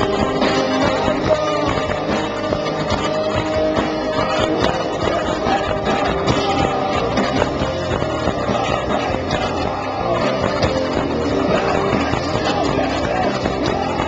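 A post-hardcore rock band playing live, with electric guitars, bass and drums and a singer's voice over them, heard loud and full from out in the crowd.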